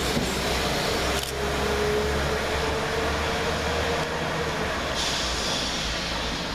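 West Midlands Railway Class 172 diesel multiple unit pulling away and receding, its engines and running gear making a steady rumble. A thin whine sinks slightly in pitch.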